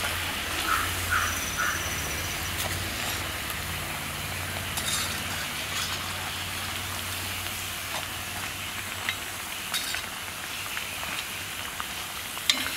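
Lentil vadas deep-frying in hot oil in an iron kadai: a steady sizzle and crackle, with a few light clicks as a metal slotted spoon turns them.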